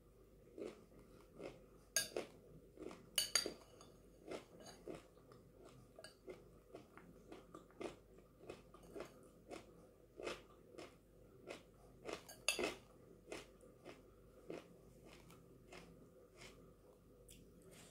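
Close-up chewing of crunchy chana chatpate, a mix of chickpeas, vegetables and dry noodle pieces, as a steady run of crunches about two a second. A few louder, sharper clinks come from the metal spoon on the glass bowl, near two seconds in, just after three seconds, and a little past twelve seconds.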